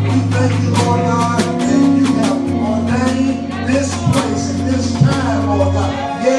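Live gospel band music: a drum kit's snare and cymbal strikes in a steady beat over held bass notes and chords.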